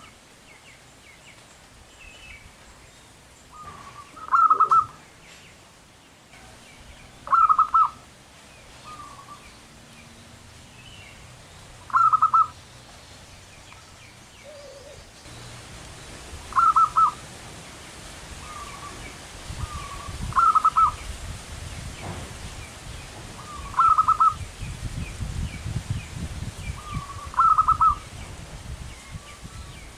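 Zebra dove (perkutut) cooing: seven calls, one every three to five seconds, each a short soft note followed by a louder quick run of coos.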